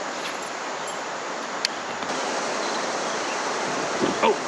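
Steady rush of river rapids, with a single sharp click about a second and a half in.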